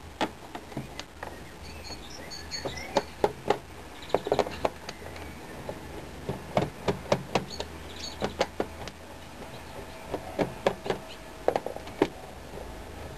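Screwdriver undoing the screws on the underside of a plastic keyboard: a string of irregular small clicks and taps as the metal tip seats in the screw heads and knocks against the plastic case.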